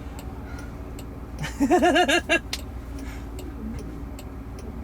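A car's indicator clicking at an even pace while the car sits stopped with its engine hum low. About two seconds in, a brief warbling tone is the loudest sound, its pitch wavering quickly up and down.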